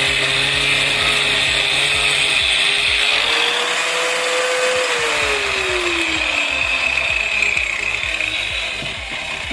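Angle grinder running together with a shop vacuum, a steady loud whir. The motor's pitch rises a little about four seconds in and then falls away.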